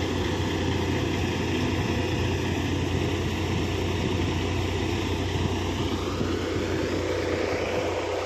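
Tractor-powered threshing machine running steadily while threshing fennel: a continuous low engine drone under the thresher's broad whirring noise.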